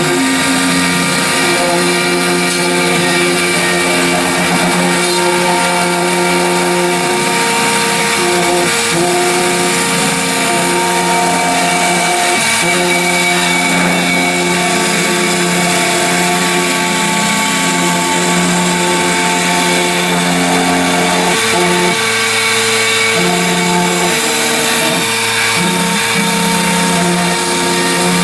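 Home-built CNC machine running under software control: a steady power-tool whir with several pitched motor tones that shift and switch every few seconds as the stepper-driven axes change speed and direction.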